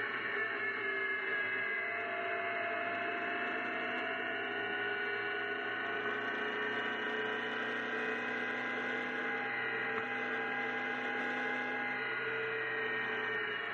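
Engine of a GBS Zero open-top kit sports car droning at a steady cruise, a layered hum whose pitch drifts slowly up and down with engine speed.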